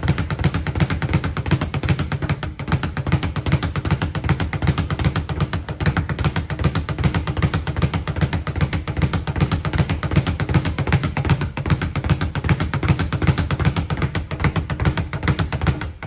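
A speed bag being punched in a fast, steady rhythm, rattling against its overhead rebound platform. The strikes stop right at the end.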